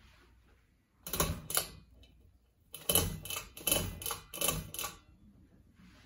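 Pull-chain switches on a Kichler Canfield Select ceiling fan being pulled, each pull a click with the chain rattling: two about a second in, then a quicker run of about five, switching the light kit off and the fan motor on.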